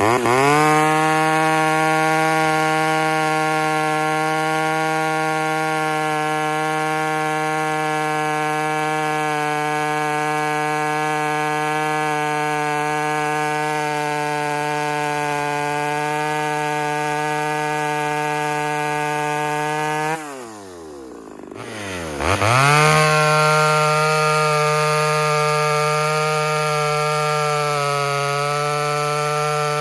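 Ported Homelite Super XL Auto two-stroke chainsaw held at full throttle cutting wood, its engine pitch steady. About twenty seconds in the revs drop sharply to idle for a moment, then it revs straight back up and runs steady again, sagging slightly a little later.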